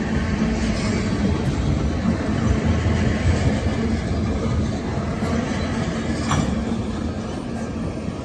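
Freight train tank cars rolling past, a steady low rumble of wheels on rail, fading slightly as the end of the train moves away.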